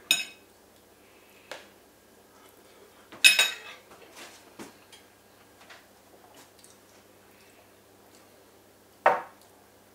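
Metal fork clinking and scraping on a plate of baked pasta, with a few light clicks and a louder clink a little over three seconds in as the fork is laid down on the plate. A short sound comes near the end.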